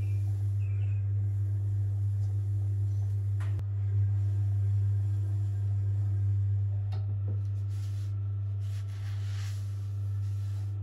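The electric motor and cone drive of a restored Venco No. 5 pottery wheel, running with a steady low hum, with a couple of small clicks and a short brushing hiss near the end.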